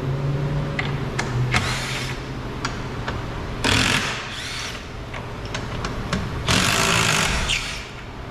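Power driver spinning out body screws in two short bursts, about a third of the way in and again near the end, with scattered clicks of the screws and tool between, over a steady low hum.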